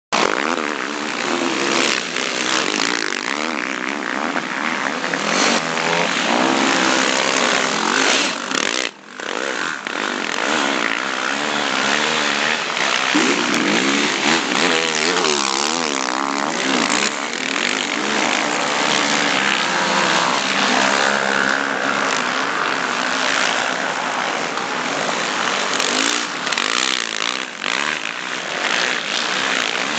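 Several sport quad bikes (ATVs) riding hard, their engines revving up and down in pitch as the riders work the throttle, with one brief dip in level about nine seconds in.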